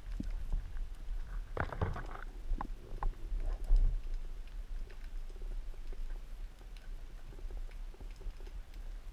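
Underwater ambience picked up by a camera in a waterproof housing on a speargun: a steady low rumble of water moving past the housing, with scattered faint clicks and ticks. A short rustling burst comes about one and a half seconds in, and a sharp knock just before the four-second mark.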